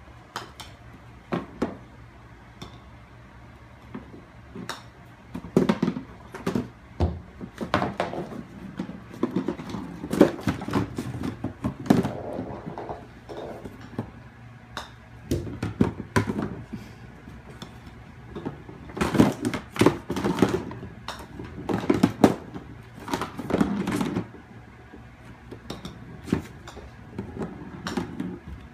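A kitten batting a golf ball around an indoor putting mat: irregular knocks and hard clattering as the ball rattles against the mat's plastic cups and return gutter, sparse at first and busier from about five seconds in.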